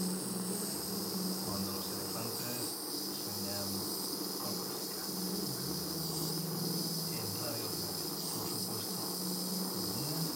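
Jeweller's gas soldering torch burning steadily, hissing as it heats a silver ring to flow easy solder onto small balls of silver shot, with a constant high thin tone over it.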